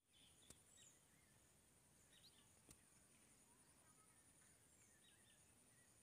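Near silence: faint outdoor ambience with a few soft, short bird chirps and a steady high hiss, broken by a couple of faint clicks.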